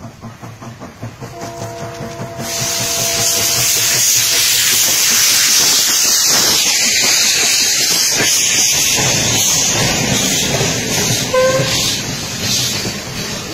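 Steam locomotive passing close by: exhaust chuffing at a steady beat, then from about two seconds in a loud, sustained hiss of steam venting from the cylinder drain cocks as the engine goes by, and the clatter of passenger coaches' wheels on the rails near the end. A steam whistle sounds faintly for a couple of seconds near the start.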